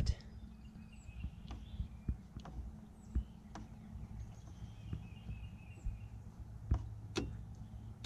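Porsche 944 pop-up headlight motor humming steadily as its manual knob is turned past the fully-down position, the motor straining against it, with scattered light clicks.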